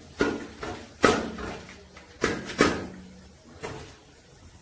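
A perforated steel spoon knocking and scraping against an aluminium pot while stirring whole spices in oil, with about five sharp, irregularly spaced clinks.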